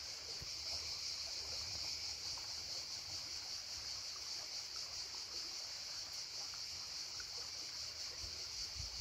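Mountain river running: a steady, even rushing hiss, with a low rumble of wind on the microphone.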